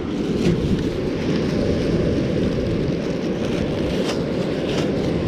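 Wind buffeting the microphone as a steady low rumble, with a few faint clicks.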